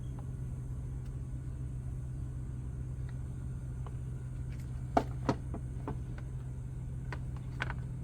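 Two sharp knocks a fraction of a second apart about five seconds in, with a few fainter taps, as the old and new air filters are handled and compared, over a steady low hum.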